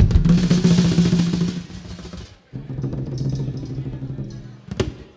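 Live rock band playing, with drum kit and cymbals. The playing breaks off about two seconds in, a held low note follows, and a single sharp drum hit comes near the end, like the close of a song.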